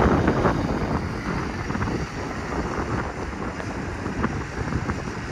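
Scania S770's 16-litre V8 diesel engine running as the tractor unit drives away across the gravel yard, growing fainter, with wind buffeting the microphone.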